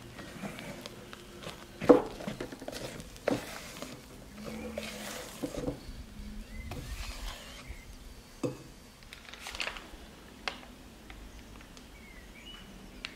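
Spatula folding powdered sugar into meringue in a glass bowl: soft scraping and squelching, with a few sharp knocks of the spatula against the bowl, the loudest about two seconds in.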